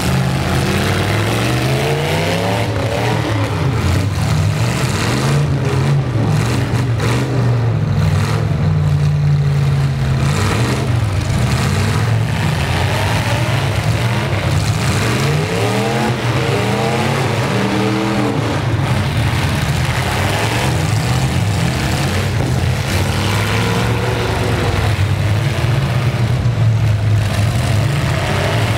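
Several full-size pickup truck engines revving up and down over one another as demolition derby trucks drive and ram each other.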